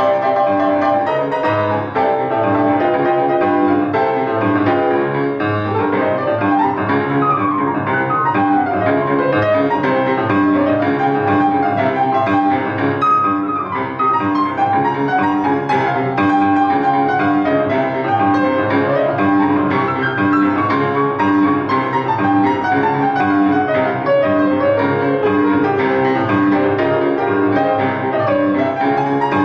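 Grand piano played solo, a dense, continuous stream of notes with quick runs sweeping up and down the keyboard.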